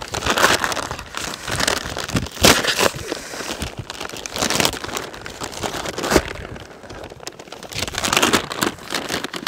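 Clear plastic wrapping and brown packing paper crinkling and rustling in irregular bursts as a grill stand and grate are unpacked by hand, with a couple of sharp knocks.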